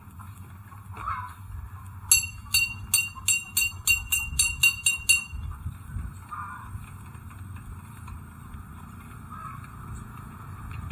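A rapid, even run of about a dozen high-pitched ringing strikes, about four a second, starting some two seconds in and lasting about three seconds, over a low steady rumble.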